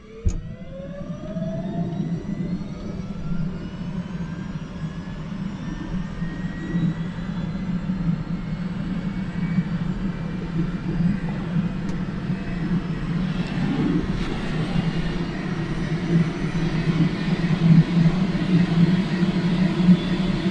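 Airbus AS350 B3 (H125) helicopter's turbine and rotor running. A whine rises in pitch and levels off over the first couple of seconds, then the sound runs steadily and grows louder and noisier from about two-thirds of the way through.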